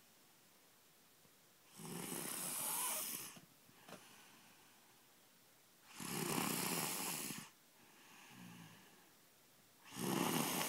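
Loud snoring: three long snores about four seconds apart, each lasting about a second and a half, with quieter breaths between them.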